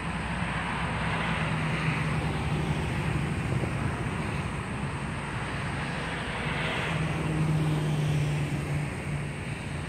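Traffic on a toll road: cars passing at speed, a steady rush of tyre and engine noise with a low drone, swelling as vehicles go by about two seconds in and again around seven to eight seconds in.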